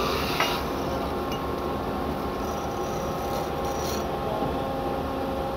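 Hyd-Mech automatic band saw running through its bundle-cutting cycle on square steel tubing: a steady mechanical hum with faint steady tones and a couple of light clicks.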